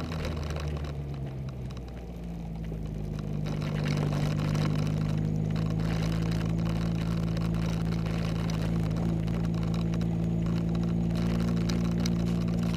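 Ginetta sports car engine running under way on a country lane. About two seconds in, the note picks up as it accelerates, then holds a steady cruising pitch.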